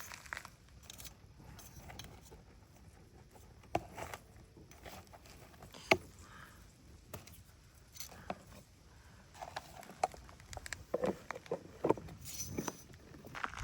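Scattered light clicks, taps and rustling from hands handling things, with a sharp click about six seconds in and a cluster of quick knocks near the end.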